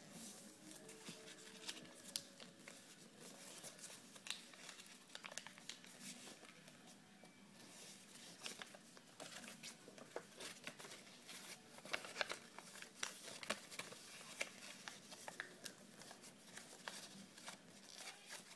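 Paper being folded and creased by hand: faint, irregular crinkling and rustling with many sharp little crackles, a few louder ones past the middle.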